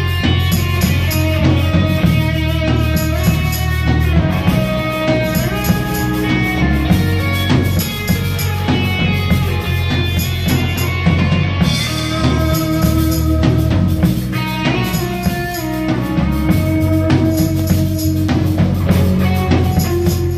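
Live rock band playing an instrumental passage with no vocals: a drum kit keeping a steady beat, with electric guitar and bass guitar.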